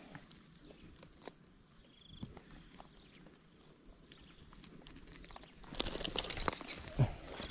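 A steady high insect chirring, crickets, over soft footsteps and rustling in dry grass; near the end, louder crackling and rustling as a caught climbing perch flops in the grass and is grabbed.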